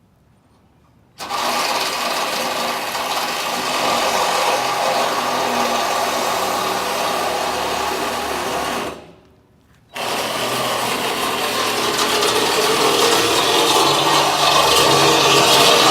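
Power tool running loud and steady, starting suddenly about a second in, dying away briefly about nine seconds in, then running again.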